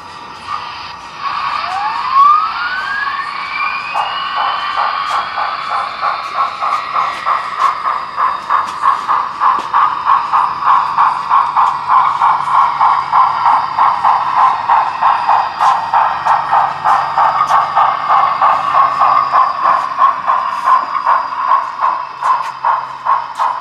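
Model steam locomotive's sound system running: a rising whistle-like tone early on, then steady rhythmic chuffing at about two to three beats a second.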